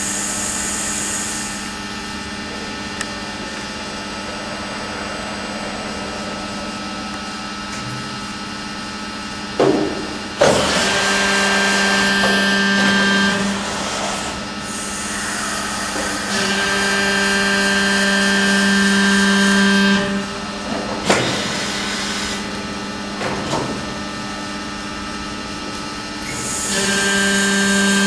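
Herber CNC tube bending machine running: a steady hum with whining tones that swells louder in stretches as it works. Sharp mechanical clunks come about ten seconds in and again around 21 and 23 seconds.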